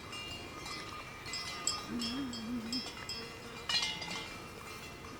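Small metal livestock bells ringing and clinking irregularly as cattle move about, with several overlapping bright tones. A faint wavering call is heard about two seconds in.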